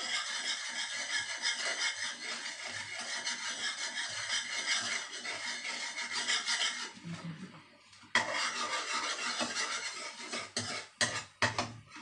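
A utensil scraping and rubbing against the bottom of a large metal pan as coconut milk is stirred, with a short pause about seven seconds in, then a few sharp knocks of the utensil against the pan near the end.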